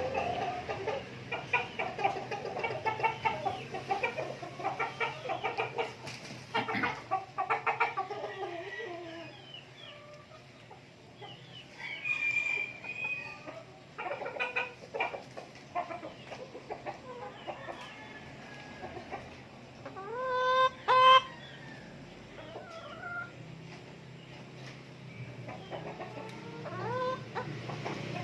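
A flock of native chickens clucking and chattering, busiest in the first several seconds. Two louder, clear calls come about two-thirds of the way through.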